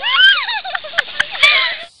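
A girl's high-pitched squealing cries, rising and falling in pitch, with a few sharp clicks among them; the sound cuts off abruptly near the end.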